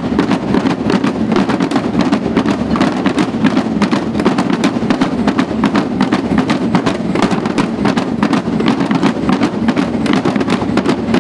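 Street drum band of snare drums and large bass drums beaten with sticks, playing a fast, dense, loud rhythm without a break.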